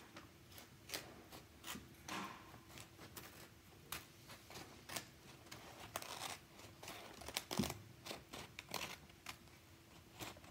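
Small pink child's scissors snipping through a sheet of paper, many short irregular snips spaced from a fraction of a second to about a second apart.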